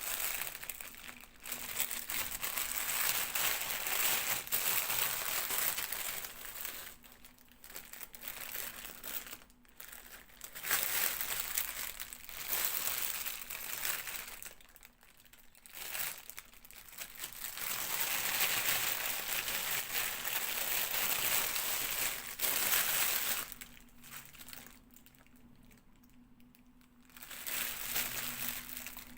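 Packaging crinkling and rustling as toys are unwrapped. It comes in spells of a few seconds with short pauses between them.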